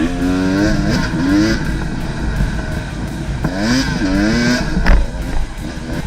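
Off-road motorcycle engine revving in two rising sweeps, one at the start and another about three and a half seconds in, with a sharp knock about five seconds in.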